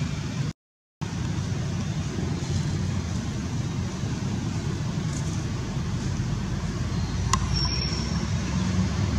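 Steady low outdoor rumble, with a brief cut to silence about half a second in and a single sharp click near the end.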